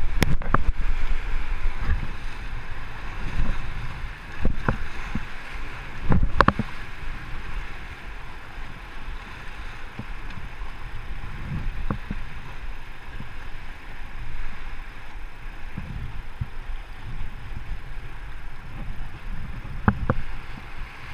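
Rushing whitewater around an oar-rowed river raft running a rapid, a steady wash of water noise with wind rumbling on the microphone. Sharp splashes or knocks stand out a few times, most of them in the first seven seconds.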